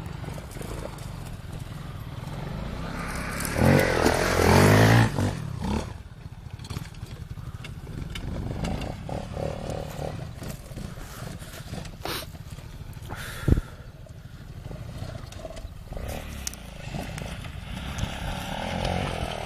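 Quad ATV engine running and revving as it rides over dirt. There is a loud burst of revving a few seconds in and a single sharp knock later, and it grows louder again near the end as the quad climbs onto a dirt mound.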